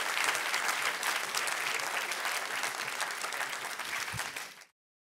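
A large seated audience applauding, a dense steady clapping that fades away and cuts off near the end.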